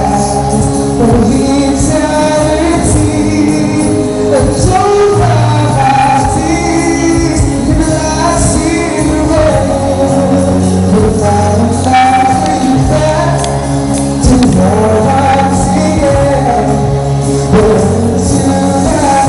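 A song playing loudly: a singing voice over backing music with percussion.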